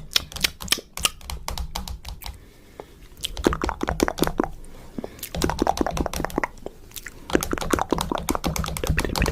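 Rapid, irregular clicking and tapping in several bursts, with short quieter pauses between them.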